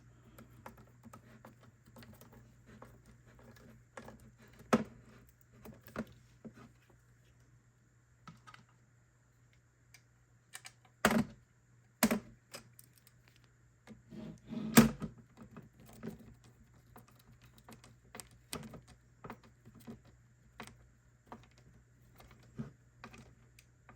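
Irregular clicks and knocks of hard plastic and metal parts being handled as a Teke LED tube light's front cover is fitted back on, with a few louder knocks about 5, 11, 12 and 15 seconds in.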